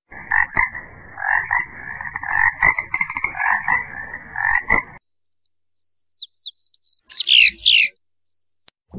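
A chorus of frogs croaking in dense overlapping pulses, cutting off about five seconds in. It is followed by high, short chirping calls that glide in pitch, with two louder sweeping calls near the end.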